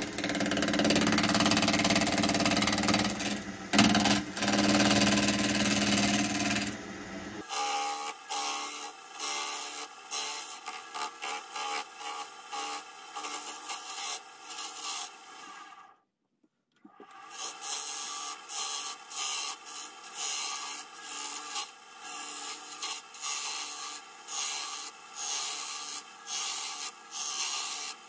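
Turning tool cutting a spinning wood blank on a lathe, taking it down to a round plug. It begins as a steady cutting hiss over the lathe's hum, then about seven seconds in becomes a run of short, repeated scraping cuts, broken by a brief silence a little past halfway.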